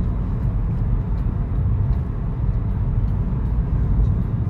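A steady low rumble of noise with no distinct tones or strokes.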